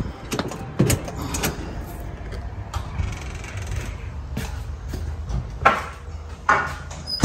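A metal lever door handle worked and a street door pushed open, with a few sharp clicks and knocks in the first second and a half, then softer handling and shuffling noise over a low steady hum.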